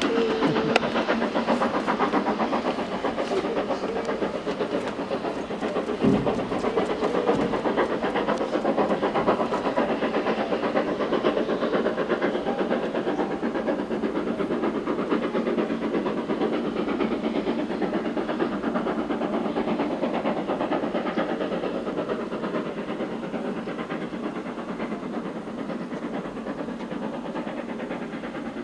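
Express train hauled by the four-cylinder King-class steam locomotive 6024 King Edward I running away at speed, its steam exhaust and the carriage wheels clattering over rail joints gradually growing fainter as it recedes. A brief thump about six seconds in.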